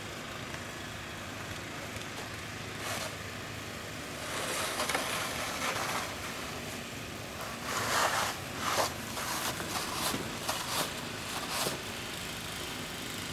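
Snow shovel scraping snow off a brick driveway in a run of short scrapes, the loudest about eight seconds in, over a steady low background hum.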